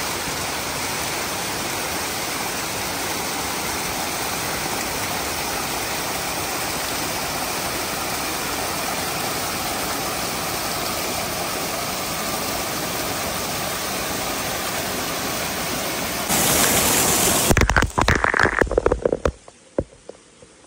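Steady rush of a small waterfall cascading down a rock face. Near the end it gets louder and breaks into irregular bursts as water sprays onto the microphone, then drops off.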